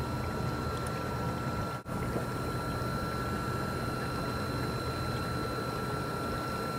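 Radio-controlled scale model tugboat's small motor running steadily with a thin, constant high whine over a low churning rumble from the water. The sound dips out briefly about two seconds in.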